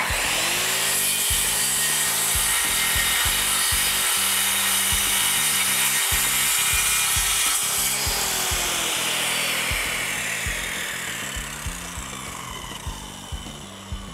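Bosch corded circular saw starting up and ripping through a plywood sheet. Its motor note rises to speed within a moment and holds steady through the cut, then drops as the saw is switched off about eight seconds in, and it slowly winds down.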